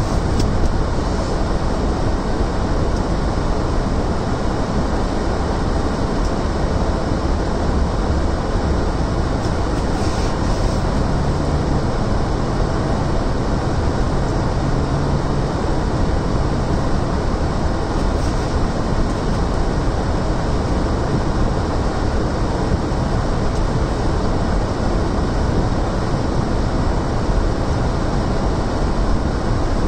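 Steady road and engine noise inside a moving car's cabin, its tyres running over a snow-covered road.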